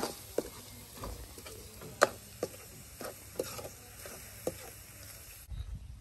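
Metal ladle scraping and clinking irregularly against a steel wok as a stir-fry is stirred, with the food sizzling underneath. The loudest clink comes about two seconds in, and the sizzle stops abruptly near the end.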